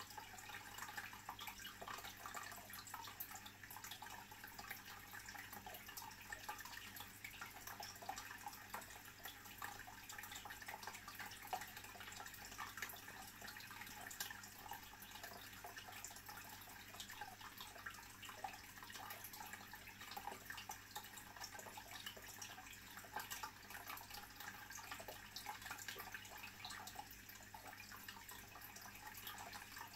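Faint, steady bubbling and trickling of aquarium water circulation: a dense patter of tiny pops and drips over a low steady hum.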